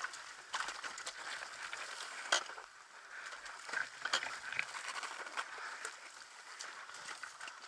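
Dirt bike picking its way up a rocky, overgrown gully: irregular crackling and clicking from tyres on stones and brush against the bike, with a sharp knock about two seconds in. No steady engine note stands out.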